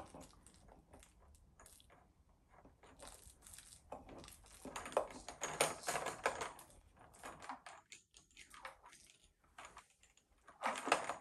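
Irregular light clicks and taps of plastic toy parts on a baby activity table as babies handle and knock them, busiest in the middle stretch and again near the end.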